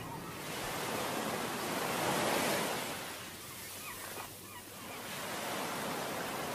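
Surf: a steady rushing noise of waves that swells, ebbs about four seconds in, and swells again.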